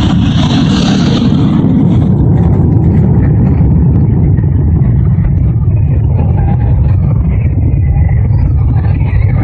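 Jet engine of a Thunderbirds F-16 Fighting Falcon: a loud, steady low rumble, recorded on a cell phone. The higher hiss fades after about the first two seconds.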